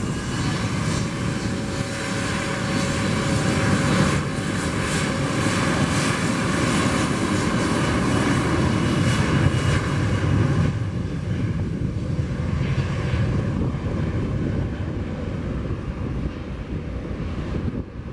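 Embraer E175 jetliner's twin General Electric CF34 turbofan engines at takeoff power during the takeoff roll, a roar with a faint whine. It grows loudest about ten seconds in, then fades as the jet lifts off and climbs away.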